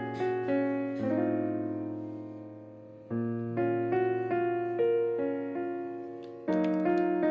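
Background piano music: a slow, gentle piece of sustained chords and single notes.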